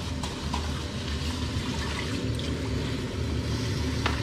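Kitchen tap running water into a plastic container of basmati rice as the rice is rinsed by hand, with a few light knocks.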